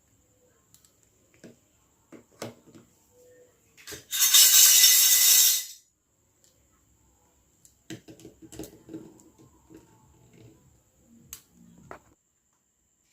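Small plastic toy kitchen pieces being handled, with scattered light clicks and taps. About four seconds in comes a loud rush of noise lasting under two seconds, then a longer stretch of faint crackling and rustling from handling.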